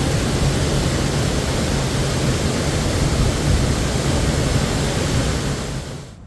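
Loud, steady rushing noise with no distinct events, cutting off sharply about six seconds in.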